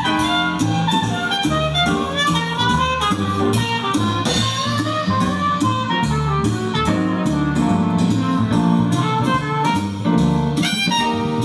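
Instrumental music with a steady beat, played loudly through a large 3-way speaker with a 9-inch bass driver, driven by a tiny PAM8403 class-D 3-watt USB amplifier board.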